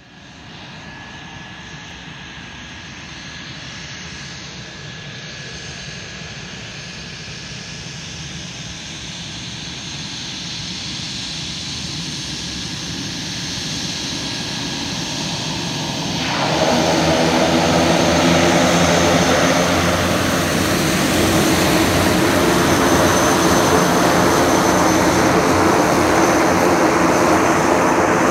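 The twin PT6A turboprop engines of a Beechcraft Super King Air 200 run on the ground as it taxis, with a steady high turbine whine that slowly grows louder. About 16 seconds in the sound jumps sharply louder and a harsher, many-toned propeller buzz comes to the fore.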